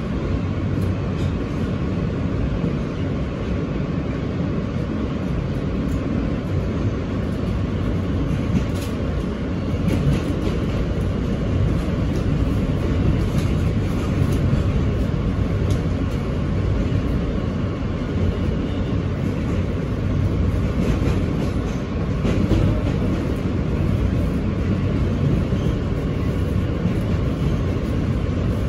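Steady rumble of a New York City R160 subway car in motion, heard from inside the car, with a few faint clicks.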